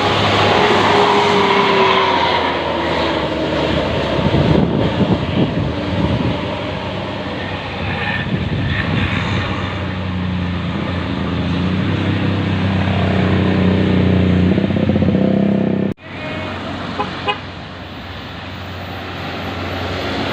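A bus's 'telolet basuri' multi-tone horn playing a melody over the running bus engine. The sound breaks off abruptly about sixteen seconds in, and a quieter passage follows.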